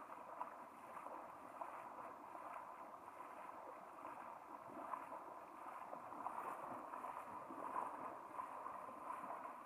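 Faint sloshing and splashing of river water as a person wades through it, in irregular small splashes. A thin, steady high tone runs underneath.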